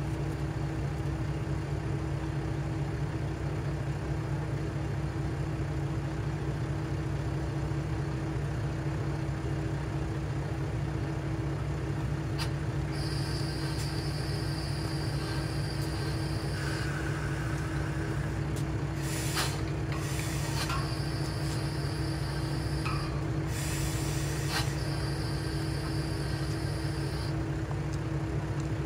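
The diesel engine of the KiHa 3710 railcar idles steadily at the platform with a low hum. Between about two thirds and five sixths of the way through come a few short hisses of air.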